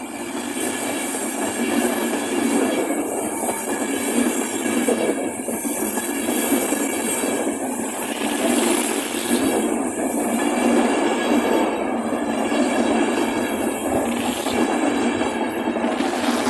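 An InterCity 225 train, led by its Mark 4 driving van trailer with the Mark 4 coaches following, passes close by at a level crossing. Its wheels on the rails make a steady, loud rush that rises sharply as the front of the train arrives.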